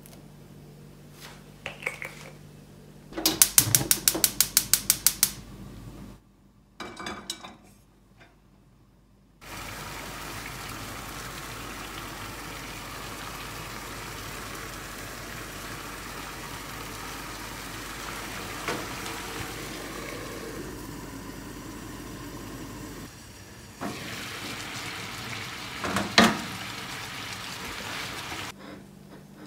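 Kitchen cooking sounds: a fast run of about a dozen clicks a few seconds in, then a frying pan sizzling steadily with water and pancake batter in ring moulds, and a short clatter of cookware near the end.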